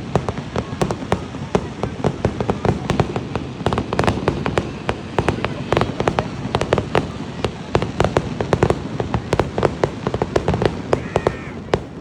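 A fireworks display going off in quick succession: a dense run of sharp bangs and crackles, several a second, over a low rumble.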